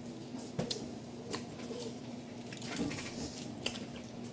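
Quiet room sound of people eating: a few small sharp clicks and soft mouth noises over a faint steady hum.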